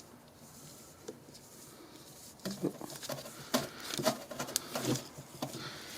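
Grease gun working grease into the new stabilizer link's grease fitting: after a quiet start, a run of irregular clicks and squishes comes about halfway in.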